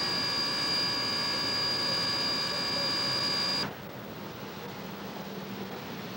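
Steam locomotive FWWR #2248, a 4-6-0, blowing off steam: a loud steady whistling hiss with several high tones, which cuts off abruptly a little over halfway in, giving way to a quieter, even rushing hiss of steam blowing from its open cylinder cocks.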